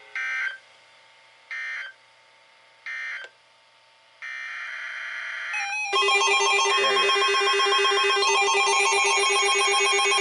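Emergency Alert System tones on a weather radio. First come three short data bursts about a second and a half apart, then a steady tone about four seconds in. From about six seconds a loud warbling alert alarm starts, signalling a new warning.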